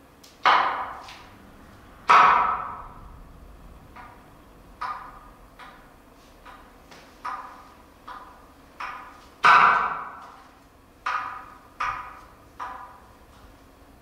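Clarinet sounding short, sharp percussive notes: about a dozen separate pops at irregular intervals, each ringing briefly in the room. The loudest are about half a second in, two seconds in and near the ten-second mark.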